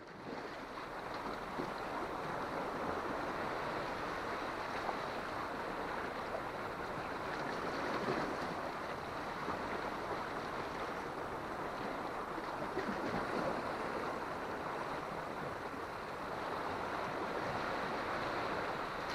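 Sea surf washing against a rocky shoreline, a steady rushing with small swells.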